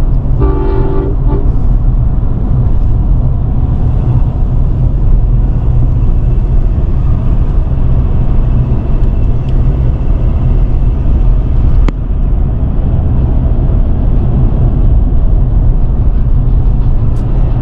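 Steady low rumble of a moving vehicle, with a short horn toot about half a second in.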